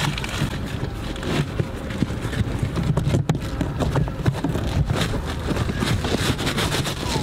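A stiff quilted 7D car floor mat being pushed and pressed into a car footwell: rustling and scraping with many irregular knocks and clicks as the mat is worked against the floor and trim.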